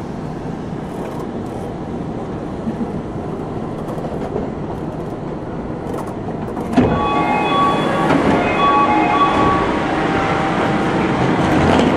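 Cabin running noise of an Okinawa Urban Monorail (Yui Rail) 1000-series train. About seven seconds in it turns suddenly louder, and a series of short high tones at several pitches sounds for a couple of seconds.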